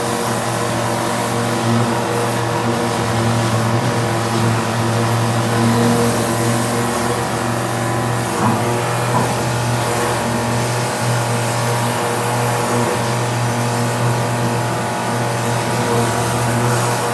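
Pressure-washer drain jetter running steadily, a constant machine drone, while its hose jets a blocked sewer pipe to clear it.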